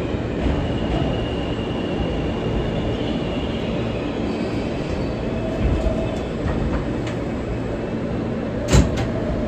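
An R160B subway car heard from inside, running on the rails with a steady rumble and a faint high wheel squeal over the first few seconds. A single sharp clunk comes near the end.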